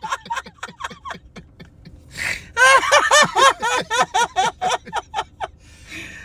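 A man laughing hard and uncontrollably: quick, quieter pulses at first, a sharp intake of breath about two seconds in, then a loud run of high-pitched 'ha' bursts, four or five a second, that fades out near the end.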